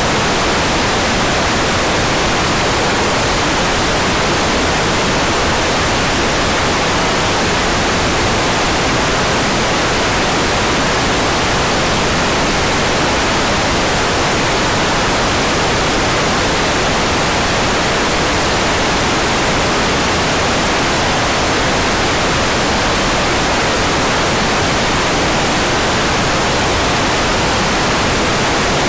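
Hair dryer running steadily: a loud, constant rush of blown air that does not change.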